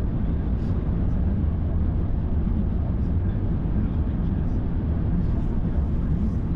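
Steady low rumble of a car driving on a motorway: tyre and engine noise heard from inside the cabin.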